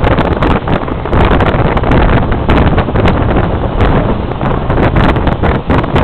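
Loud wind buffeting the microphone, a rough, uneven rumble that rises and falls in gusts.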